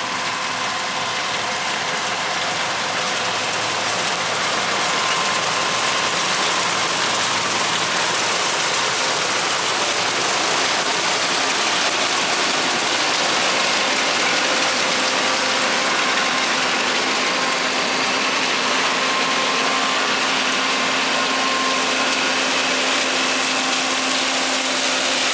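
John Deere 9400 combine running steadily while harvesting soybeans: a constant machine din with several steady whining tones, growing a little louder over the first few seconds.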